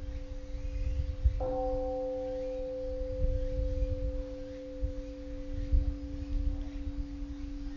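Bell-like ringing tones with a long sustain, like a struck singing bowl. One is struck again about one and a half seconds in and slowly dies away, over a low, uneven rumble.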